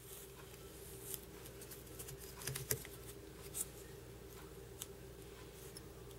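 Quiet handling of thread and tools at a fly-tying vise: a few scattered small clicks and ticks, the sharpest about two and a half seconds in, over a faint steady hum.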